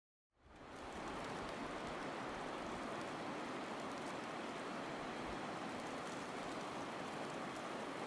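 Outdoor ambience of a forest snowstorm: a steady, even hiss with no distinct events, fading in within the first second.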